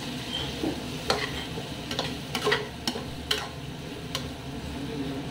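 Metal spoon stirring a sizzling vegetable masala in a pressure cooker, scraping the bottom and clicking sharply against the pot's side several times.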